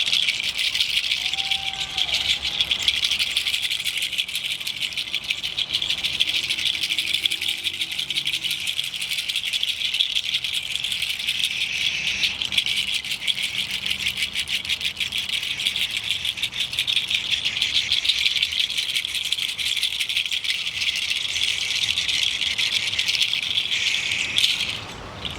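Hand rattle shaken fast and without pause, giving a dense, steady rattling that stops sharply near the end.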